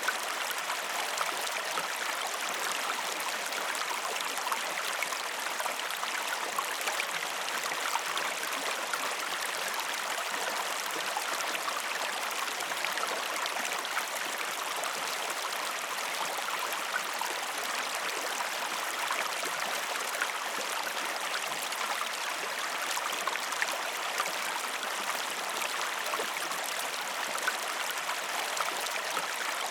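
Calm river water flowing steadily: an even rush of water with many small fine splashes and trickles, no low rumble.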